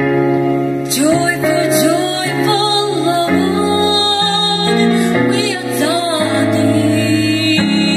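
A woman singing with vibrato over piano accompaniment; the piano chords come first and her voice enters about a second in.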